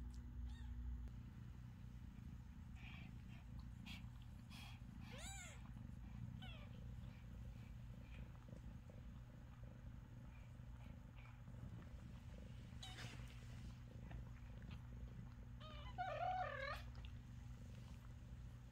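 A cat purring steadily, with a kitten's short, high mews: one about five seconds in, fainter ones after it, and a longer wavering mew near the end, the loudest sound.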